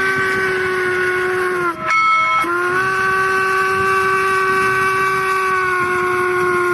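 Train whistle blowing: a blast of just under two seconds, a brief break, then a long blast of about four seconds that sags slightly in pitch as it ends.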